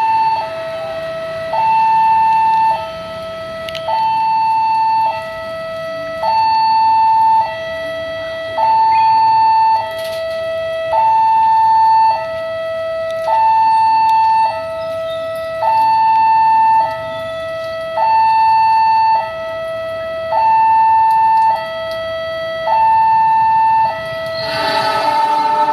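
Railway level-crossing warning alarm sounding a two-tone hi-lo signal, high and low tones alternating, each held about a second, warning of an approaching train, over the hiss of heavy rain. Near the end the approaching train's horn comes in.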